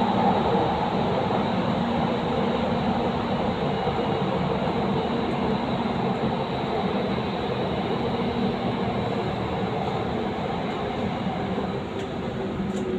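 Doha Metro Gold Line train running through a tunnel, heard from inside the car: a steady rumble of wheels and running gear with a faint steady whine.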